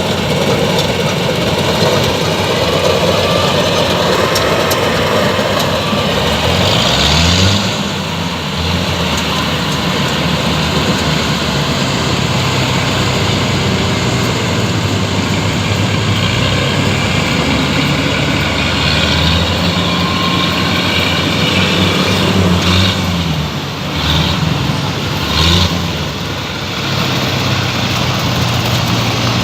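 Rice combine harvester engine running over a steady noisy whir, its pitch rising and falling a few times as the load changes.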